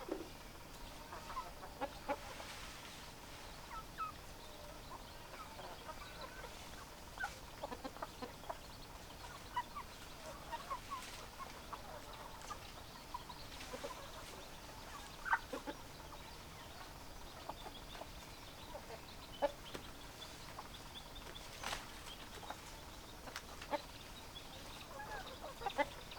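Several hens clucking: many short clucks scattered irregularly, over a faint steady background hiss.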